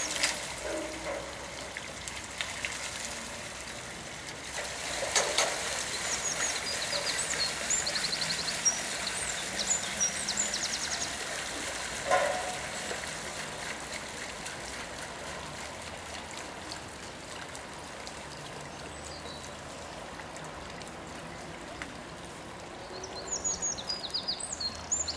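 Water splashing and trickling steadily down a water-play installation's stepped metal basins, with a couple of louder splashes. Small birds chirp in short runs at times, most near the middle and the end.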